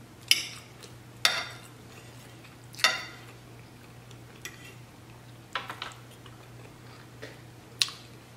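Metal fork clicking and scraping against a dinner plate while scooping food, five or six sharp strokes at irregular intervals, over a low steady hum.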